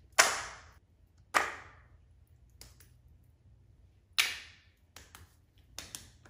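Silicone pop-it fidget toys slapped down onto a foam board: three sharp slaps, about a second and then three seconds apart, each dying away quickly, followed by a few lighter taps near the end.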